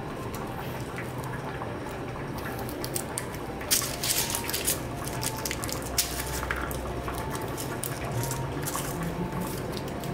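Papery garlic skins crackling and rustling as fingers pry cloves off a garlic bulb, in irregular crackles that come thickest a little before halfway, over a faint steady low hum.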